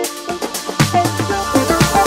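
Electronic dance music with a steady beat; a deep bass line comes in about a second in.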